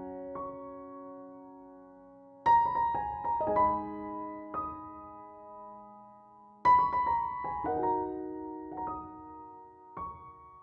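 Solo piano background music, slow and gentle. Chords and single notes are struck and left to ring and fade. A new phrase starts about a quarter of the way in and another about two-thirds of the way through.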